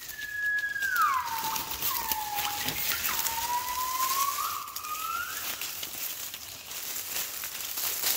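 Gibbon calling: one long whistled note that starts high, slides down, then climbs slowly back up over about five seconds, with light crackling throughout.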